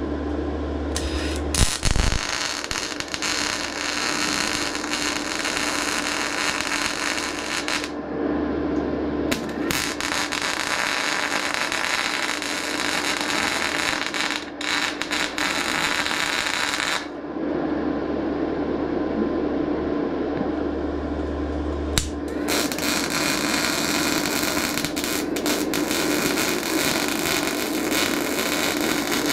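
MIG welder arc crackling and spitting as sheet steel is welded, in three runs of several seconds each with short pauses between. A steady hum sits underneath.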